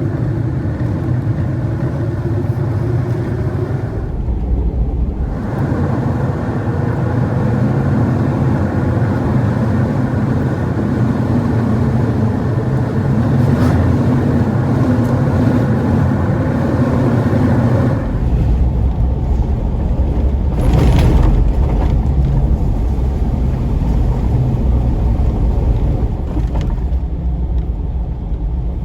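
Jeep Wrangler driving on a dirt trail: the engine runs with a heavy low rumble, and its pitch rises and falls with the throttle. The sound changes abruptly a few times.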